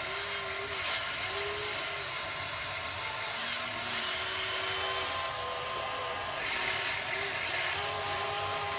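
Small electric motors of a toy RC excavator whining in short runs, the pitch rising and falling as the controls are worked, over a steady hiss.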